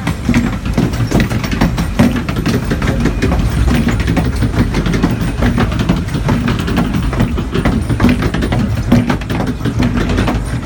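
Log flume boat being hauled up the lift hill: the lift mechanism clatters with a rapid, irregular run of clicks over a steady low rumble.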